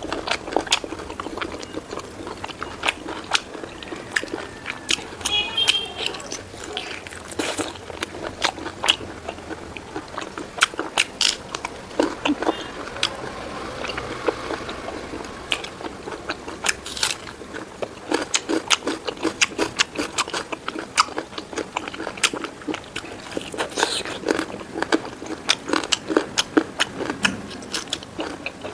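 Close-miked eating of pork ribs curry with rice: chewing and biting, with many short sharp wet clicks and smacks coming irregularly.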